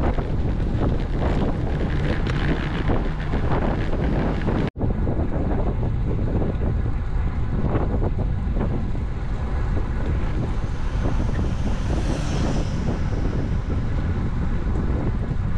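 Wind buffeting the action camera's microphone on a moving road bike: a loud, steady rush heaviest in the low end. The sound drops out for an instant about five seconds in.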